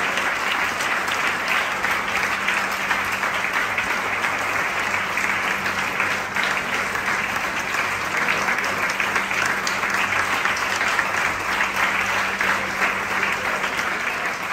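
Audience applauding steadily, many hands clapping at once, with a faint steady low hum underneath.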